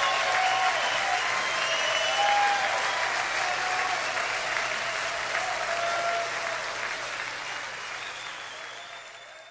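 Seawater rushing and splashing close to the microphone, a dense hiss that fades out near the end.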